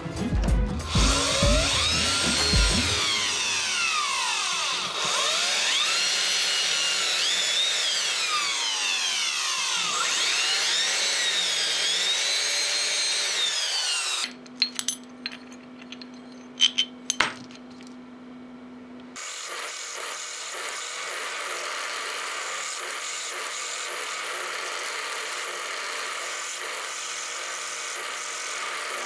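Metal being machined with power tools. For the first stretch a cutting tool squeals against a spinning metal pulley, its pitch sweeping up and down. After about fourteen seconds a motor hums steadily with a few sharp clicks. From about nineteen seconds an electric drill bores into a small steel angle bracket, a steady cutting noise over the motor hum.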